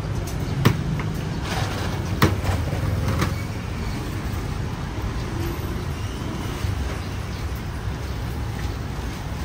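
Steady low rumble of street traffic, with a few sharp clicks in the first three seconds.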